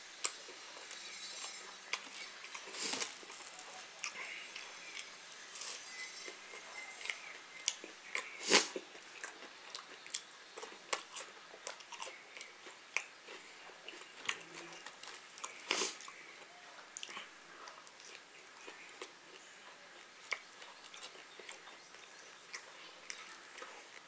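A person chewing and biting food close to the microphone, with many small wet clicks and three louder knocks spread through.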